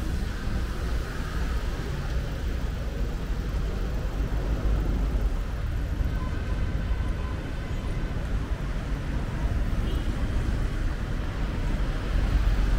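Road traffic noise: a steady low rumble of motor vehicles.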